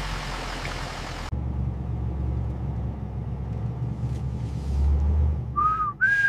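A steady low rumble, with a loud hiss over it that cuts off abruptly about a second in. Near the end come two short whistled notes, each rising then falling in pitch, the second higher and louder.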